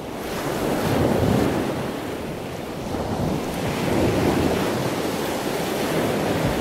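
Rushing ocean surf, a steady wash that swells about a second in and again around four seconds in.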